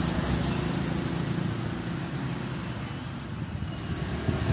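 A motor vehicle engine running, a steady low rumble with hiss that dips a little in the middle.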